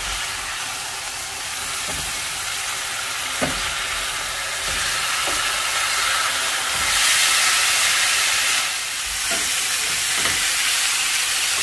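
Marinated chicken breasts sizzling in a hot grill pan while they are turned over with tongs. The sizzle swells for a couple of seconds just after the middle, and there are a few faint taps from the tongs.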